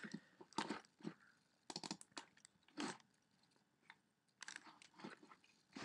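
Faint, irregular clicks of typing on a computer keyboard, coming in scattered clusters with short pauses between.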